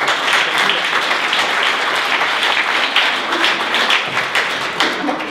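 Audience applauding, many overlapping hand claps, tailing off near the end.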